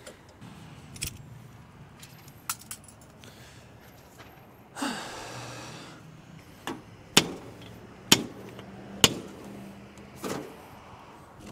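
Pieces of scrap metal clinking and knocking as they are handled, a handful of separate sharp clanks, with a longer rustling scrape about five seconds in.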